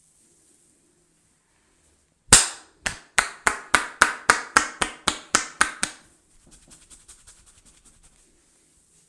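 A barber's hands slapping during a head massage: about a dozen loud, sharp claps, quickening to about four a second, then a couple of seconds of much softer, quicker patting.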